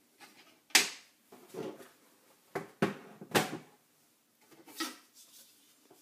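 Plastic laptop case being handled and turned around on a wooden tabletop: a few separate sharp knocks, the loudest one under a second in.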